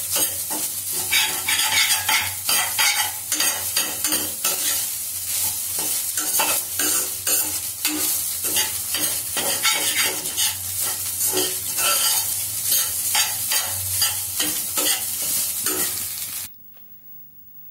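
Rice being stirred and turned in a hot stainless steel pan: a spatula scraping the pan in many quick, uneven strokes over the sizzle of frying. It stops abruptly about a second before the end.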